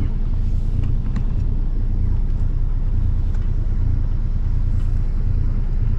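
A sailboat's inboard diesel engine running steadily under way, a constant low drone, with some wind buffeting on the microphone.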